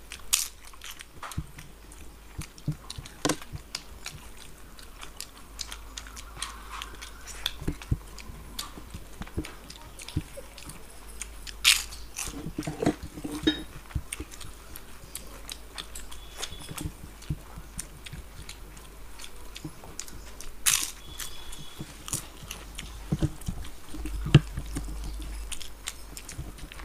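Close-miked eating sounds of two people eating rice and curry with their hands: chewing, soft wet mixing of rice and scattered clicks, with a few sharper clicks along the way.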